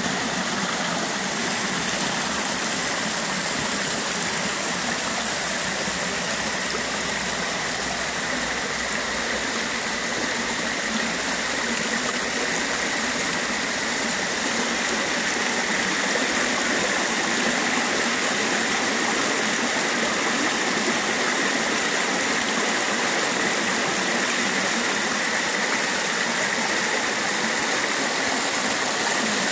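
Small woodland stream splashing down a cascade over rock slabs, a steady rush of water that gets a little louder after about halfway.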